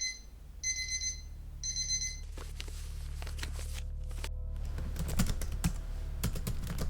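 An electronic alarm beeping in three short bursts, stopping about two seconds in, then a run of rapid irregular clicks over a low steady hum.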